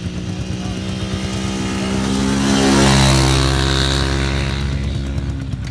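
Quad bike engine driving past, growing louder to a peak about three seconds in and then fading, its pitch dropping as it goes by.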